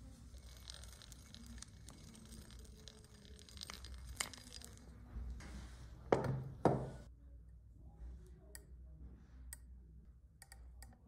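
Hand work with metal tools at a bench vise: a scratchy rasping for the first few seconds, two heavy knocks about six seconds in, then scattered light metal clicks as a tap wrench is handled.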